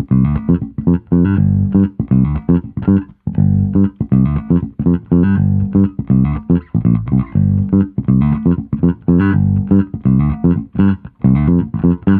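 Electric Jazz Bass played through a Caline Scuru S8B mini bass amp's small speakers and picked up by a microphone: a busy bass line of quick plucked notes with short pauses about three and eleven seconds in.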